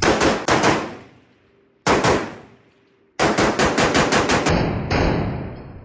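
Springfield Armory M1A SOCOM 16 CQB semi-automatic rifle in 7.62 NATO fired rapidly: four quick shots, a single shot about two seconds in, then a fast string of about seven shots. Each string trails off in echo.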